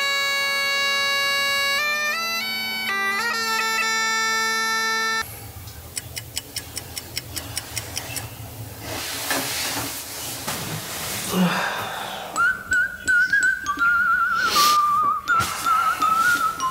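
Highland bagpipes playing a tune over their steady drone, cut off suddenly about five seconds in. Then a clock ticking, about three or four ticks a second, and from about twelve seconds in a wavering whistled tone.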